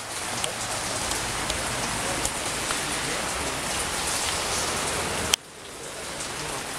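Steady rain falling, with scattered sharp ticks of individual drops. The sound drops off abruptly a little past five seconds in, then builds back up.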